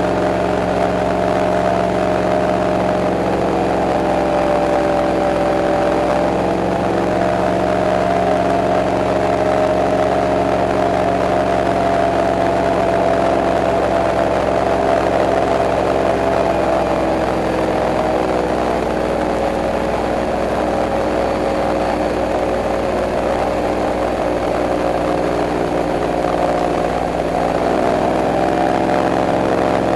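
Airboat engine and propeller running steadily under way, a loud drone whose pitch dips and recovers a few times, falling a little past midway and climbing back near the end.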